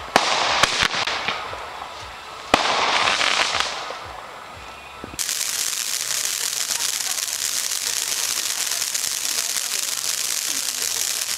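Fireworks: a sharp bang right at the start, another under a second later and a third about two and a half seconds in, each trailing off in a hissing crackle. From about five seconds in, a ground fountain firework sprays sparks with a steady, loud hiss.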